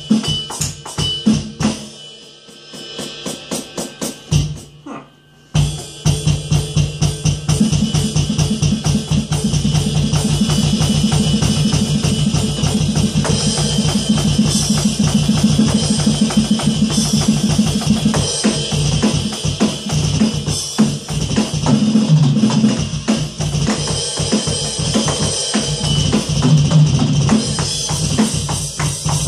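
Roland V-Drums electronic drum kit played in a steady groove with bass drum, snare and cymbals, along with a backing song. About two seconds in the music thins out to a run of lighter hits and briefly drops almost away. The full beat comes back in at about five and a half seconds.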